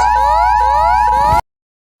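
Emergency Alert System–style alarm: a steady two-tone attention beep sounding over repeating rising electronic siren sweeps, about two a second. It cuts off suddenly about a second and a half in.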